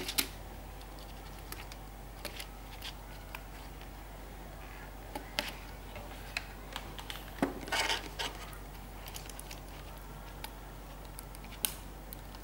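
Scattered light clicks and taps of hands and a soldering iron working on a laptop keyboard's metal backing plate and plastic rivets, with a short scrape about seven and a half seconds in, over a low steady hum.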